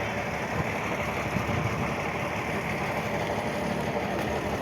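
Steady low rumble and hiss of a running motor vehicle.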